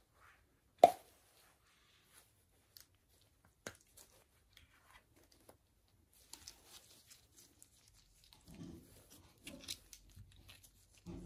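Gloved hands handling a small plastic and silicone gadget and its cap: one sharp click about a second in, then scattered faint ticks and soft rubbing and rustling.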